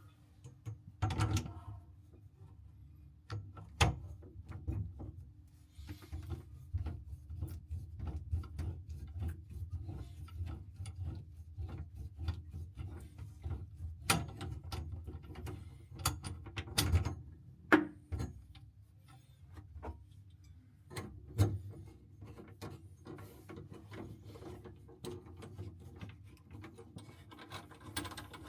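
Hand tools working on the tap and pipe fittings under a basin: irregular clicks, scrapes and rubbing, with a few sharper knocks scattered through.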